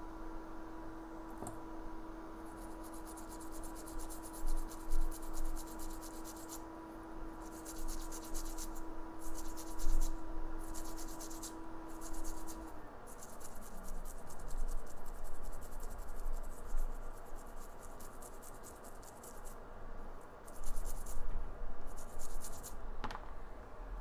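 Cleaning wipe scrubbed back and forth over a freshly reballed Samsung Exynos 8890 chip to clean off flux, in several runs of quick scratchy rubbing strokes. A steady hum in the background winds down about halfway through.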